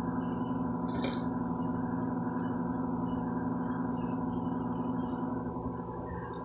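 Steady droning hum of several held tones at an even level, easing off slightly near the end.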